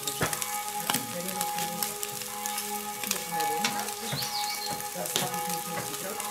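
Pizza sizzling and crackling on a baking stone under the hot top burner of a Steak Burner XL gas grill, a steady busy crackle of small pops.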